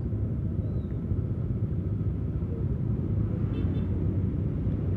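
Steady low rumble of motorcycles and cars idling in stopped traffic, with no single engine standing out.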